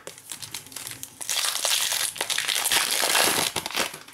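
Foil wrapper of a Panini Prizm trading-card pack being ripped open and crumpled in the hands: a dense crinkling, loudest from about a second in until near the end.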